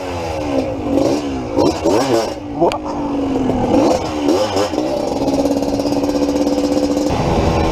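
Yamaha DT180 two-stroke single-cylinder engine revving in quick rising and falling blips as the bike pulls away, then settling to a steady pitch for the last few seconds while cruising.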